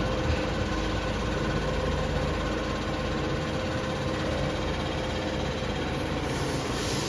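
CNC drilling and milling machine running steadily, a mechanical hum with a held tone; a short knock right at the start, and a hiss comes in near the end.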